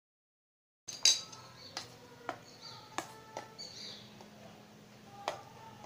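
Metal spoon clinking against a stainless-steel bowl while eating: about six separate clinks with short ringing, the first, about a second in, the loudest.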